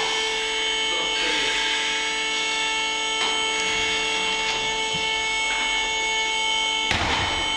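A machine running with a steady, even hum made of several fixed pitches. Over it come faint taps and rubs from hands working a rubber seal and piston into a brake caliper held in a vise, and a short burst of noise about seven seconds in.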